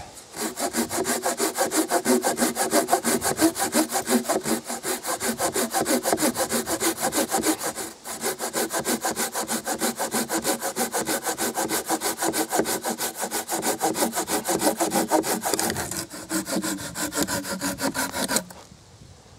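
A folding garden saw, its teeth sharpened on both sides, cutting through a dry log by hand in fast, even back-and-forth strokes. There is a brief break about eight seconds in, and the sawing stops near the end as the cut is finished.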